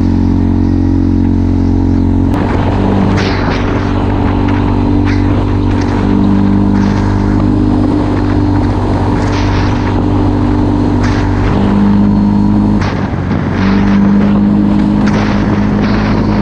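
CF Moto 450L ATV engine running under throttle on a trail ride, its pitch stepping up and down several times as the throttle changes. Scattered knocks and rattles come through, with a short dip in engine sound about three quarters of the way in.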